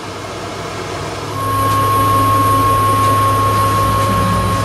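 CNC milling machine's Z-axis drive motor jogging the head upward at rapid speed: a steady motor whine that starts about a second in, over a constant low hum.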